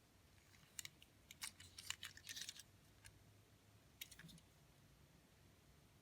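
Faint scattered clicks and light taps of a small toy and its packaging being handled, clustered around one to two and a half seconds in, with one more about four seconds in; otherwise near silence.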